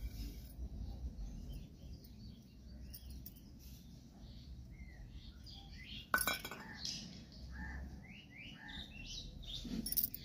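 Small birds chirping in quick short calls, over and over, with a sharp clink about six seconds in.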